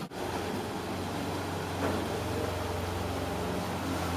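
Small outboard motor on a dinghy running steadily: a low, even hum under a constant hiss.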